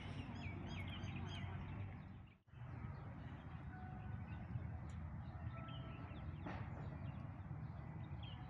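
Small birds chirping in garden trees over a steady low rumble; the sound drops out for a moment about two and a half seconds in, then a few faint high bird whistles continue.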